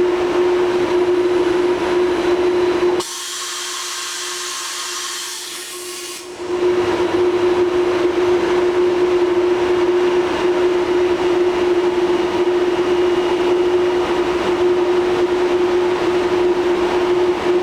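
Miyano TSV35 CNC drill-tap machining center running: a steady hum with a constant mid-pitched tone over mechanical noise. About three seconds in, the low noise drops out for about three seconds and a high hiss takes its place before the running sound returns.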